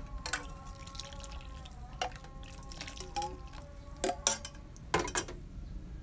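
Warm coconut milk pouring and dripping from a saucepan into a stainless steel bowl of rice flour and grated coconut, with several sharp clinks of the pan against the bowl's rim.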